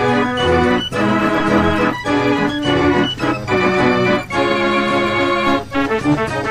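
Organ music playing a tune with changing chords.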